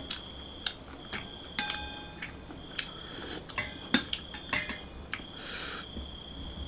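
Light clicks and taps of fingers on a metal plate as chicken is picked apart by hand, with one ringing metallic clink about one and a half seconds in.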